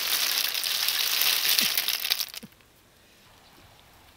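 Live snails poured from a basket into a woven bamboo tray, their shells rattling and clattering against the weave and each other as a dense run of small clicks that stops abruptly about two and a half seconds in.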